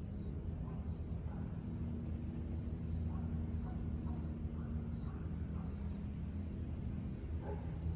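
Crickets chirring steadily in a high, continuous pulsing trill, over a steady low hum.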